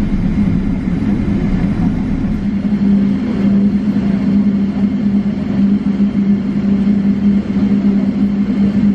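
Cabin noise of a Boeing 777-300ER taxiing after landing: a steady low drone from its GE90 engines at idle over a constant rushing hum.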